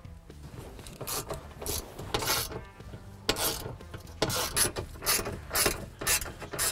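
Hand ratchet with an 8mm socket clicking in repeated short bursts, about two a second, as bolts are backed out.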